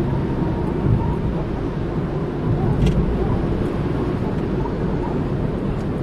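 Steady low rumble of road and engine noise inside a car's cabin while driving in city traffic.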